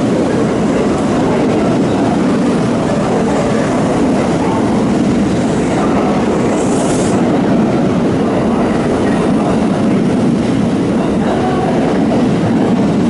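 Red-and-white electric commuter train moving along an underground station platform: steady wheel-on-rail and running noise, echoing in the station, with a short hiss about halfway through.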